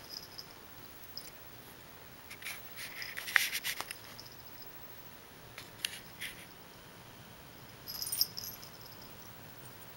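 Small bell on a cat's collar jingling in short bursts as the cat rolls and rubs against a catnip sachet: three bursts, the longest and loudest a third of the way in, shorter ones a little past halfway and near the end.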